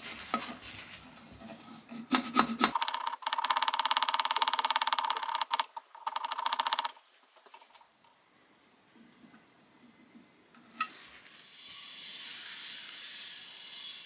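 Harsh metal rasping as an oversized brass keyhole escutcheon is worked down to fit, loudest from about three to seven seconds in, after a lighter scraping. A steady hiss starts near the end.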